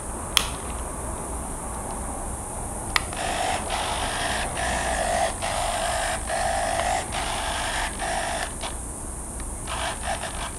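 Small RC aileron servos whirring in a string of short runs as they are driven from a servo tester, with a sharp click or two near the start.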